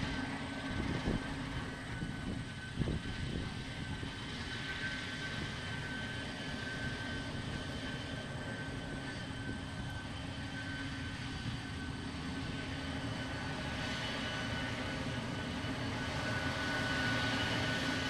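Combine harvester running while it cuts soybeans: a steady mechanical drone with a thin, high whine over it. It grows a little louder near the end as the machine comes closer.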